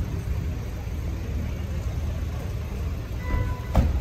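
Steady low rumble of street traffic as motorcade cars pull up. Near the end, a short beep, then one sharp knock.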